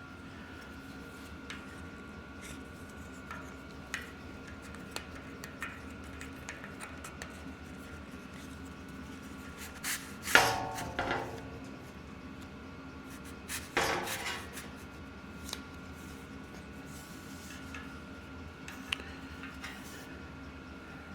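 Hands working a mountain bike tire off its rim: scattered small clicks and rubbing, with two louder scraping bursts about ten and fourteen seconds in, over a faint steady hum.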